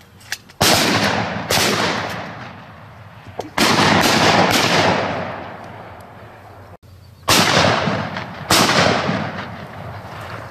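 Shotguns firing at ducks overhead: about seven shots in three quick bunches, each shot trailing off in a long echo across the open field.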